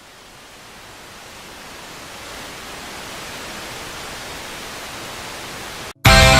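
A steady hiss of noise that swells gradually louder as a build-up in the rock soundtrack, then cuts off abruptly. Loud rock music with distorted guitars and drums crashes in right after, near the end.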